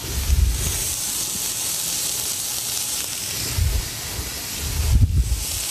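Chicken tenders searing in a hot skillet: a steady sizzling hiss, with three short, dull low thumps, one about a third of a second in, one near four seconds and one near five seconds.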